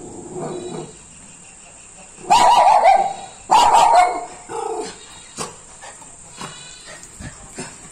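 An Indian Spitz barking: two loud barks about two and three and a half seconds in, then a softer one.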